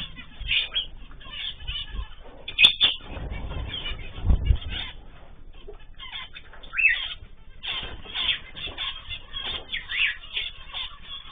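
A mixed flock of cage birds (cockatiels, zebra finches and canaries) chirping with many short overlapping calls. Bursts of wing flapping come through, mostly a few seconds in.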